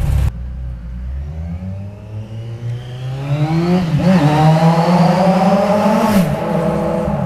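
Kawasaki Z1000's inline-four engine through Toce three-port aftermarket exhausts, revving as the motorcycle rides up a brick underpass toward the microphone, echoing off the walls. The engine note climbs, dips briefly about four seconds in, climbs again and then falls away near the end.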